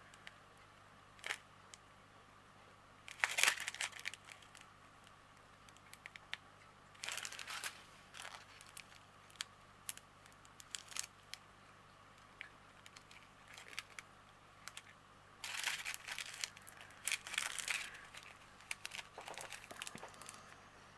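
Small plastic packets of diamond painting drills being handled and sorted: crinkling and rustling in several short bursts, with light clicks between them.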